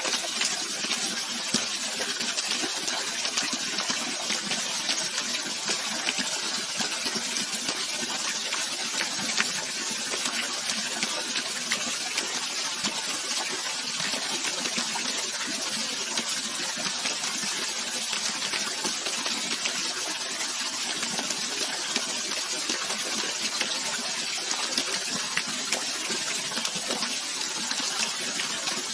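Running water flowing and splashing steadily, a continuous hiss with many small splashes and droplets throughout.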